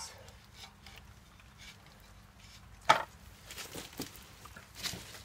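A few sharp wooden clicks and knocks of small sticks being handled at a rocket stove's fuel opening, the loudest about three seconds in and a few lighter ones after it.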